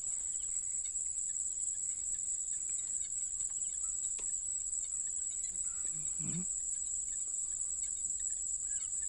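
Night insects chirring in a steady high-pitched drone, with a short low call about six seconds in.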